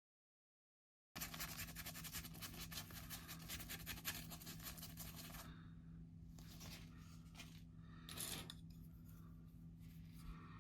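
Faint scratching with small clicks from handwork on plastic model-kit parts, densest over the first few seconds and then sparse, over a steady low hum.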